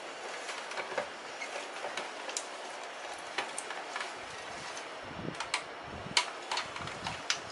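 Hand-cranked plastic juicer being turned as it presses orange segments: a steady mechanical churning noise with irregular sharp clicks.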